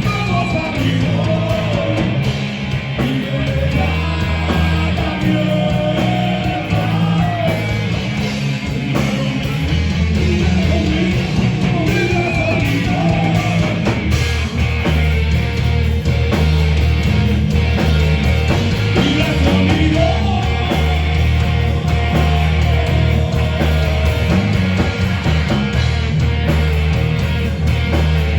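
Loud live heavy rock music: a band with electric guitar and a heavy bass low end, with a voice singing over it.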